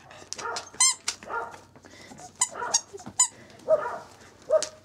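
Young Welsh Corgi puppy giving a string of short, high-pitched whines and squeaks, each under half a second, some wavering in pitch.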